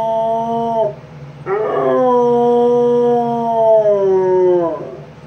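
A dog howling: one howl trails off about a second in, then a long howl of about three seconds is held steady and sags in pitch as it ends.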